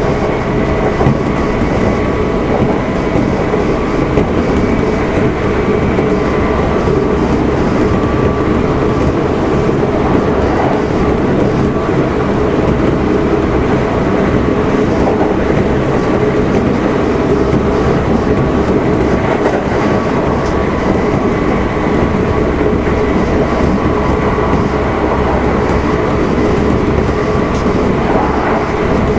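Kintetsu 1259 series electric multiple unit motor car running at a steady speed: loud, even wheel-and-rail running noise with a steady whine from the drive.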